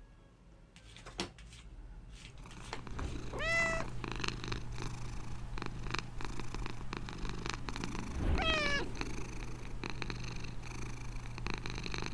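Scottish Fold cat meowing twice, short calls rising in pitch about three and a half and eight and a half seconds in, amid quick scratchy clicks of the cat pawing at the floor to bury its food, over a steady low hum.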